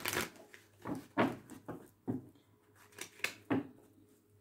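A deck of reading cards being shuffled and handled by hand: a run of short, sharp taps and slaps, about two a second.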